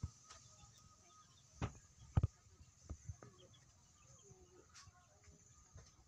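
A few short, dull knocks, the loudest about two seconds in, over a steady high hiss, with faint bird-like calls in the middle.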